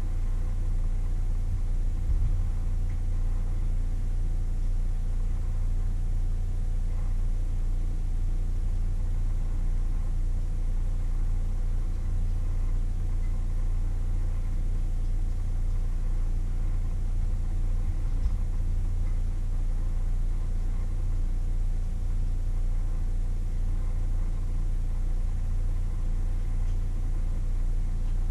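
Steady low hum with two faint steady tones above it, unchanging throughout. A faint knock comes twice.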